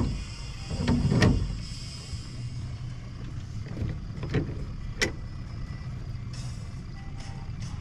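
Small outboard motor running steadily at trolling speed, with several knocks and clunks on the boat as rods and gear are handled, the loudest about a second in.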